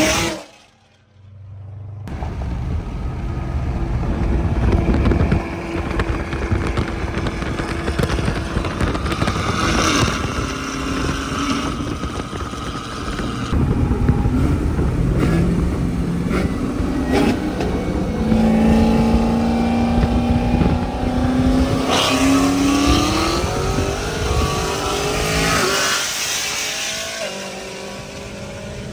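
Supercharged Chevrolet Camaro ZL1 and the camera car accelerating hard side by side on a highway, engine note climbing through the revs over heavy wind and road noise, with a brief drop-out about a second in.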